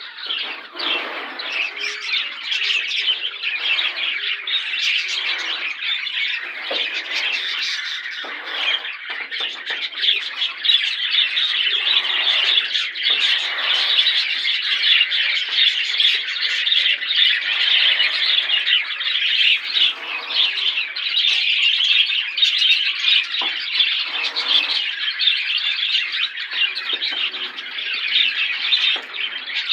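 A flock of budgerigars (parakeets) chattering and squawking together, many short overlapping calls in a continuous dense chorus.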